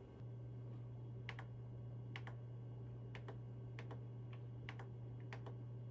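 Scattered soft clicks of a computer keyboard and mouse, about nine at irregular spacing, over a steady low hum.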